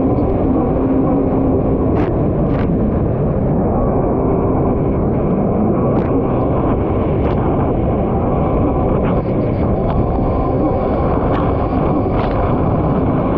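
Kawasaki SX-R 1500 stand-up jet ski's four-cylinder four-stroke engine running hard and steady at race speed, mixed with a constant rush of water and wind. A few short sharp knocks come through it.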